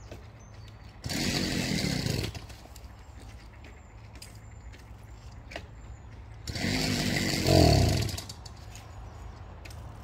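A motorised bicycle's small engine firing twice, each time revving up briefly and dying after a second or two: failed attempts to restart it after it cut out. The second attempt is longer and louder.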